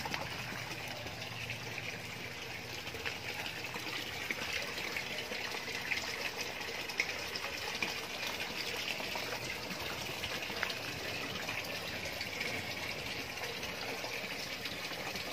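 Water running steadily and splashing into goldfish tanks, with a few faint clicks.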